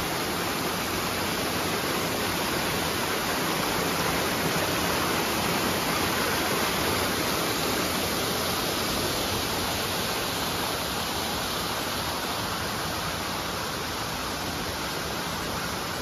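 A small creek waterfall rushing steadily as it pours over rocks. It grows a little softer near the end.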